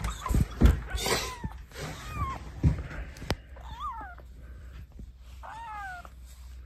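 A kitten meows three times, short high calls that rise and fall, after knocks and rustling from being handled in the first second or so.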